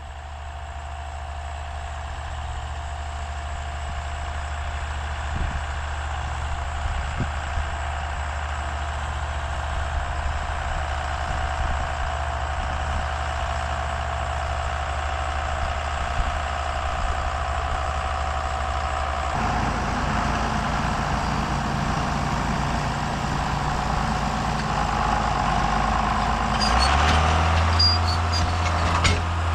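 Farm tractor diesel engine running steadily, growing louder; its note changes about two-thirds of the way through and again near the end, with a few clicks and rattles near the end.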